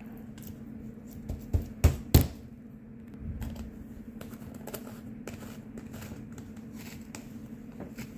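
Fingers squishing and poking clear glitter slime made with Elmer's glue in a plastic tub, giving sticky clicks and a few sharp pops about two seconds in. After that, the tub's plastic lid is fitted and pressed on, with softer clicks and rubbing.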